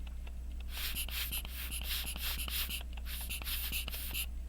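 Several long, airy breaths close to the microphone, with faint small clicks of watch parts being handled.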